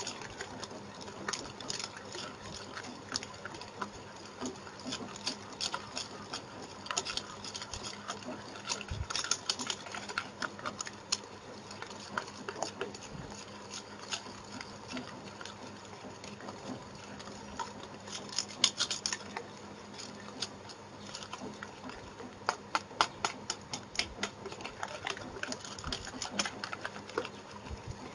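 Wire whisk beating eggs and sugar by hand in a bowl: a fast, uneven run of clicks and taps as the wires strike the bowl, thicker in several spells of harder whisking. The mixture is being beaten until the sugar dissolves.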